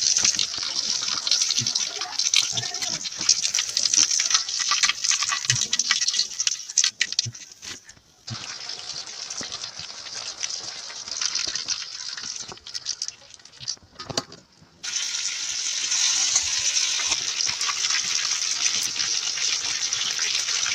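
Chicken pieces deep-frying in hot oil: a steady sizzle with scattered crackles and pops, dropping away briefly about a third of the way in and again for a couple of seconds past the middle.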